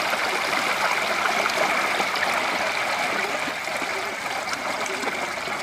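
Shallow stream running over rocks in a steady rush of water, with a thin steady high tone over it.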